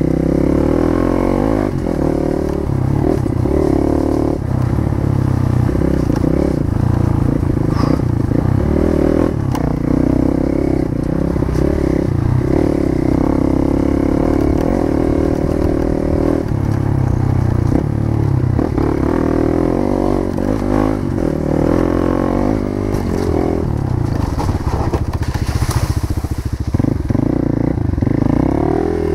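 Motorcycle engine running steadily while riding, its pitch drifting slightly up and down with small throttle changes.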